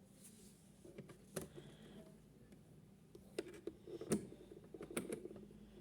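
Piko toy washing machine making light, irregular plastic clicks and rattles over a faint steady hum, the clicks coming thicker and louder from about three seconds in.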